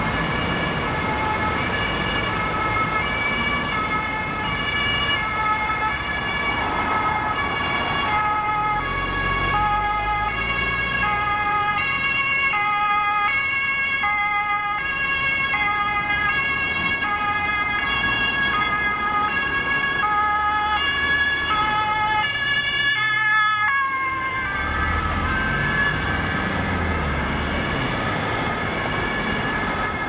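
German two-tone emergency-vehicle sirens (Martinshorn), several at once and out of step, each alternating high and low notes about every second over the low rumble of queued road traffic. About three-quarters of the way in the alternating sirens cut off abruptly, leaving fainter steady tones and the traffic rumble.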